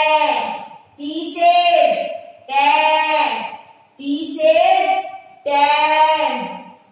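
A teacher and children chanting English phonics letter sounds in a sing-song rhythm ('S says sa, T says ta'), one short phrase about every second and a half.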